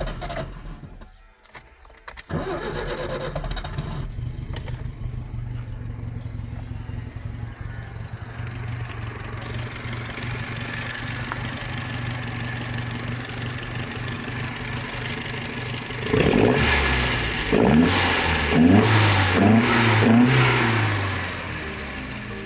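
Alfa Romeo Giulia Super's twin-cam four-cylinder engine, running on its newly fitted 123 electronic ignition. It starts and settles into a steady run about two seconds in, then near the end it is revved several times, rising and falling in pitch.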